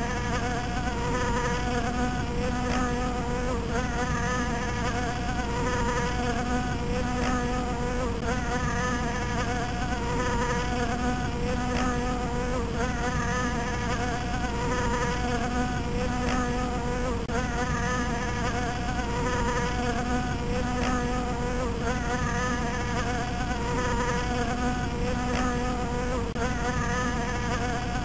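Bee buzzing continuously: a steady, even buzz whose pitch wavers slightly.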